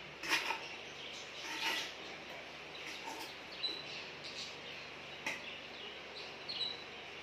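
Metal slotted spoon scraping and clinking against steel and clay pots as cooked rice is scooped out and layered for biryani, in several short scrapes. Short high chirps sound in the background.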